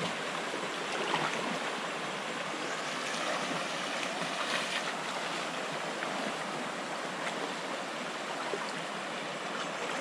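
Shallow, rocky mountain stream running steadily: a constant rush of water flowing over stones.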